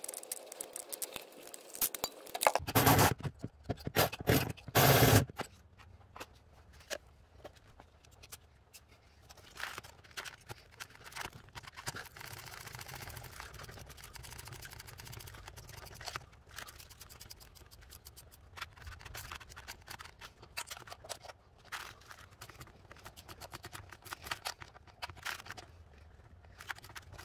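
Hand tools working on metal parts: a ratchet wrench clicking in quick runs, with clinks and scrapes of metal. There are two louder bursts of noise about three and five seconds in.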